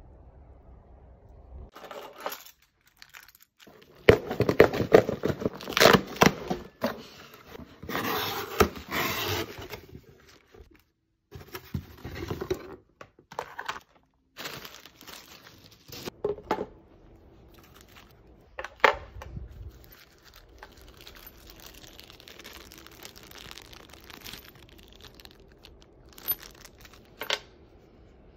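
Plastic packaging crinkling and tearing as a clamshell blister pack and a plastic bag are handled and opened. A long loud stretch of crinkling comes a few seconds in, then shorter bursts and a few sharp clicks.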